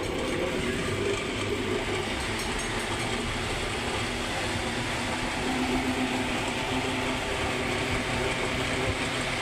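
Electric table fan running steadily, a whoosh of moving air over a low motor hum.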